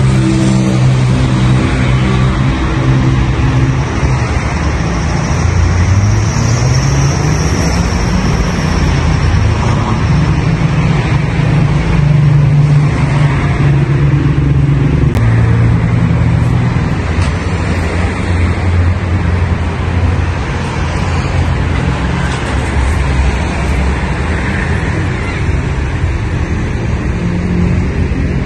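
Street traffic: cars and other motor vehicles driving past, a steady mix of engine and tyre noise with engine pitches rising and falling as they go by.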